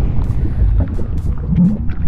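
Channel intro sting: music with water-splash sound effects, short splashy hits over a deep rumble, with a brief low tone near the end.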